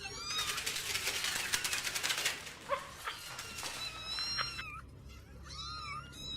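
A cat meowing several times in short, high calls, after about two seconds of a crackling, scratchy noise at the start.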